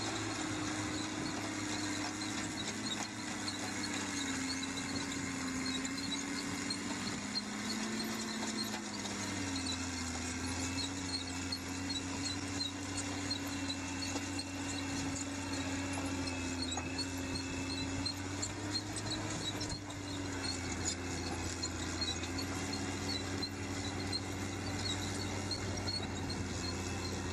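Caterpillar 623G elevating scraper loading dirt: its diesel engine runs steadily under load, with a faint high whine and rapid ticking from the chain elevator.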